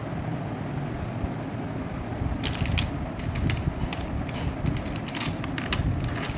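Fingers scratching and rustling in grass, a run of sharp crackling clicks starting about two and a half seconds in, over a steady low rumble of wind on the microphone.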